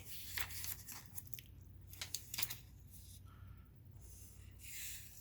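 Paper rustling and crackling in short bursts, a folded printed leaflet being handled and opened out.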